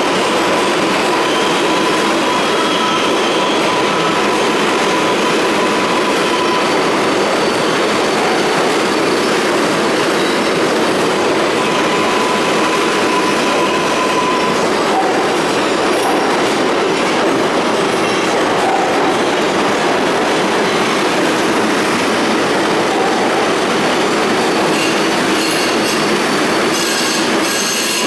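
R188 subway cars entering an underground station: a steady rumble and clatter of wheels on the rails, with a thin, high wheel squeal that comes and goes.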